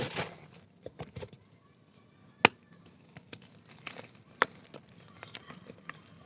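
Black dirt donuts crunching and crumbling: a short crunchy burst at the start, then scattered small cracks and crumbles, with a sharp crack about two and a half seconds in and another a couple of seconds later.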